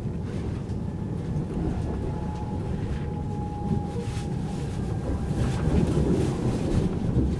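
Passenger train running at speed, heard from inside the carriage: a steady low rumble of the wheels on the rails, with a faint thin whine and a few sharper ticks, growing a little louder in the second half.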